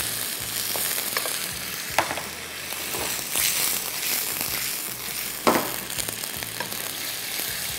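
Sliced chicken and garlic sizzling in hot oil in a frying pan over a high gas flame, with a spatula stirring and knocking sharply against the pan twice.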